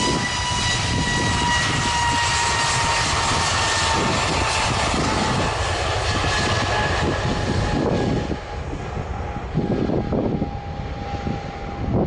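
Jet airliner's engines passing by loudly, a whine over the rush slowly falling in pitch; after about eight seconds the higher sound drops away as it recedes.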